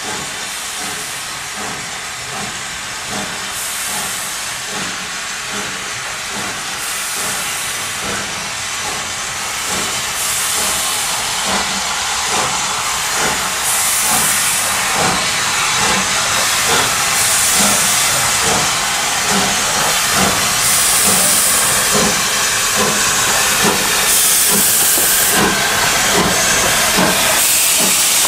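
USATC S160 class 2-8-0 steam locomotive working a train and drawing closer: a regular beat of exhaust over steady steam hissing from around the cylinders, growing louder until it passes close by near the end.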